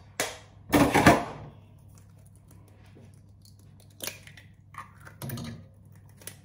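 Kitchen handling noises: a loud, brief clatter about a second in, then a few light taps and cracks near the end as an egg is knocked against a bowl and its shell pulled open.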